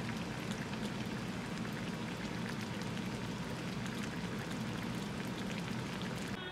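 Spicy red sauce of a pot of rabokki (tteokbokki with ramen noodles and fish cakes) bubbling on the boil, a steady dense crackle of small pops.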